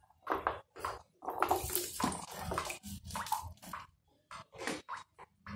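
Diced carrots dropped by hand into a pan of water, splashing and plopping in irregular bursts, busiest through the first four seconds and sparser after that.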